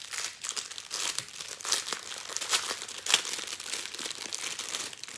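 Small clear plastic bags of diamond painting drills crinkling and rustling as they are handled in the hands, with irregular sharp crackles.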